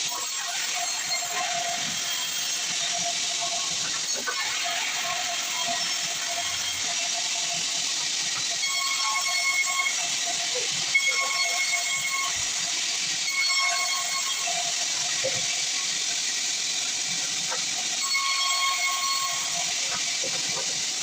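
Sawmill saw cutting through a log: a steady hiss with a thin whine that comes and goes every second or two.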